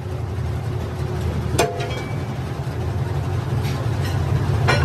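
Steady low engine-like rumble of machinery, with two sharp metallic clinks that ring briefly, one about a second and a half in and one near the end.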